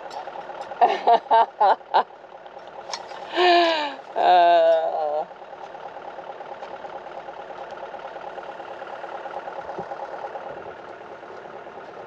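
Farm ute's engine idling steadily. In the first half a voice cuts in with a quick run of four short bursts, then two longer sounds.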